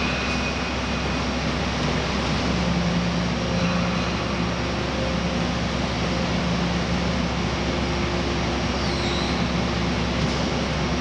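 A steady mechanical drone of broad noise over a faint low hum, even throughout with no strokes or changes.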